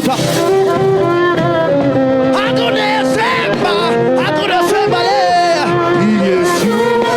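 Live gospel music: a band playing held notes with a sliding melodic line over them, with some singing.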